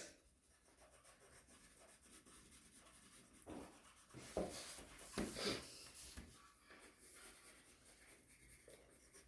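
Faint pencil strokes scratching on paper: a few short scribbles of shading in the middle stretch.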